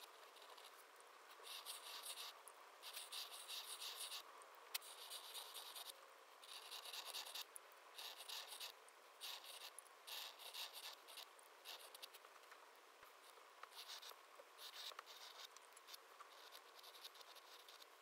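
Faint scratching of a flex-nib dip pen's metal nib dragged across paper in a series of short strokes, each lasting up to a second or so, with one sharp tick about five seconds in.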